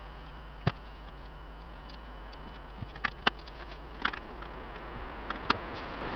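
Gas camping stove burner hissing steadily under a pot, with a few sharp clicks and pops scattered through, the hiss growing louder near the end.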